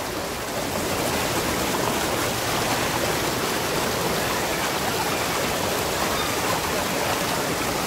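Shallow river water rushing steadily over and around rocks.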